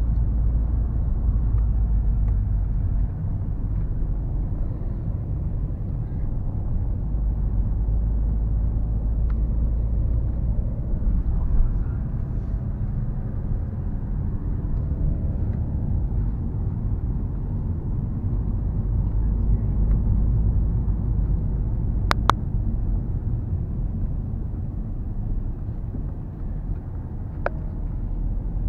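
Car driving up a winding road, heard from inside the cabin: a steady low rumble of engine and tyre noise. A sharp click cuts through about three quarters of the way in, and a fainter one comes near the end.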